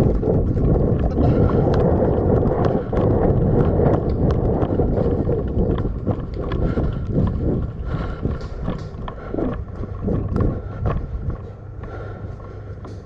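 Heavy breathing from the helmet camera's wearer, very close to the microphone and really loud, loudest in the first half and turning into a run of shorter breaths later on.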